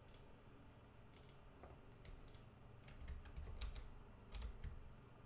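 Faint, irregular computer keyboard keystrokes: a dozen or so separate clicks, with a few dull low knocks in the second half.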